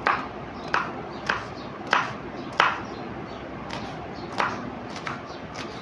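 Kitchen knife chopping green chillies on a wooden cutting board: a slow, even series of sharp knocks, about one every two-thirds of a second, the first five loudest and the later ones softer.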